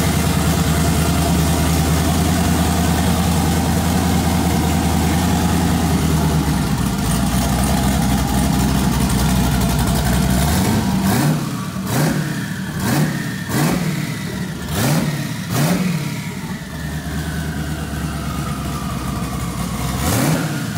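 Twin-turbo LS V8 in a Camaro idling loudly and steadily just after first startup, then revved in a quick series of about six sharp throttle blips. A turbo whistle falls in pitch as the revs die away, and the engine is blipped once more near the end.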